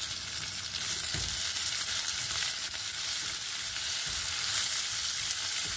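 Onions, garlic, dried red chillies and curry leaves frying in hot oil in a pan, sizzling steadily while being stirred, with a couple of soft knocks.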